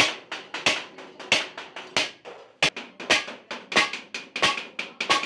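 Hammer striking galvanized sheet steel on a trunk's seams and lid: a steady run of sharp metallic taps, about two to three a second, each ringing briefly.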